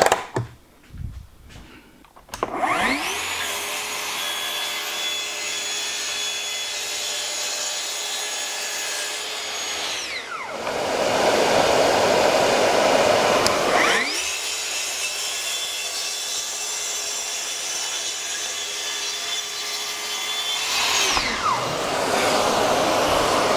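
Festool plunge-cut track saw: its motor winds up about two and a half seconds in and runs at a steady high whine. Twice the pitch drops and a louder rasp takes over as the blade cuts through the board, with the whine rising again in between.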